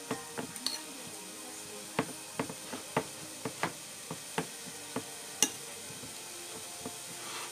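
Metal fork mashing boiled potatoes in a ceramic bowl: irregular clinks and taps of the fork against the bowl, the sharpest about five and a half seconds in.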